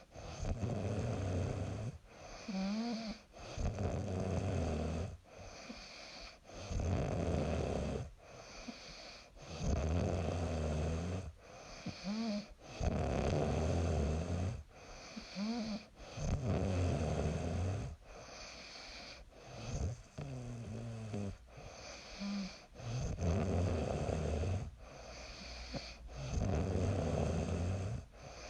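A young woman snoring in a steady rhythm, each breath a loud rasp with quieter gaps between. A few breaths carry a short, higher pitched note.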